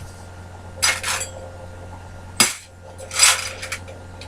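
Metal pieces clinking and rattling as they are handled, in three short bursts with a sharp knock about halfway through, over a steady low hum.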